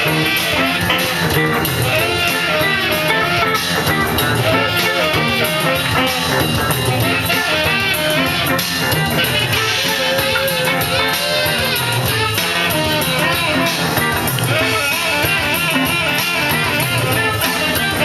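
Live rock band playing: electric guitars with a drum kit keeping a steady beat.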